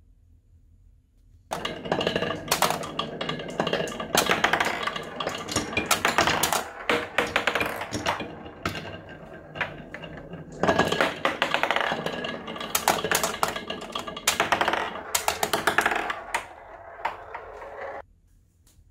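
Many glass marbles rattling down a wavy wooden track and clattering into a plastic crocodile toy's open mouth and against each other: a dense stream of rapid clicks and clacks that starts about a second and a half in and cuts off abruptly near the end.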